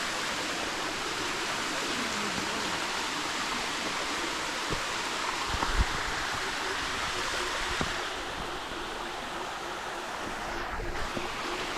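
Waterfall rushing, a steady roar of falling water that eases slightly about two-thirds of the way through, with a few soft thumps.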